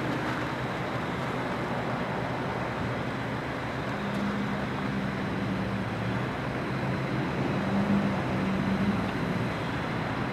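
Road traffic: a steady hiss of vehicles, with a motor vehicle engine's hum coming in about four seconds in and loudest near the end.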